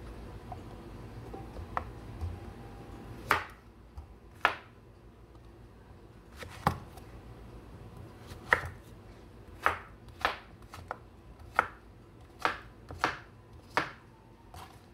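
Kitchen knife chopping zucchini on a wooden cutting board: about a dozen sharp, irregular knocks as the blade goes through the flesh and strikes the board.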